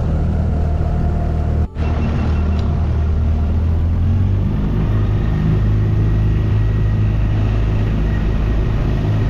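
Small boat's outboard motor running steadily, its pitch rising as it picks up speed about four seconds in, with a momentary break just under two seconds in.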